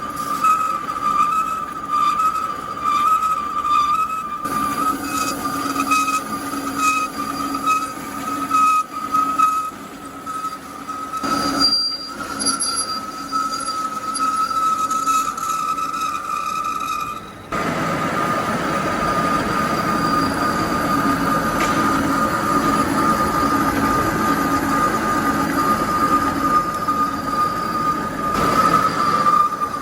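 Metal lathe running with a steady high-pitched whine. A bit past halfway a rougher, louder noise joins the whine and carries on.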